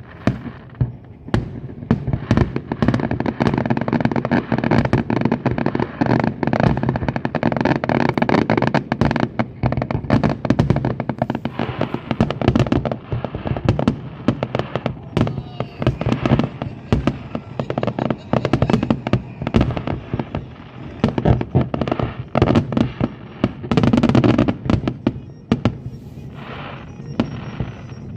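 A fireworks display: rapid, continuous bangs and crackles of bursting shells, thinning out over the last few seconds.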